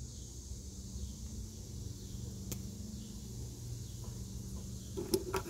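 Quiet background of a low steady hum and a faint high hiss, with a single sharp click about two and a half seconds in and a few small clicks near the end as tail-lamp trim fasteners are handled.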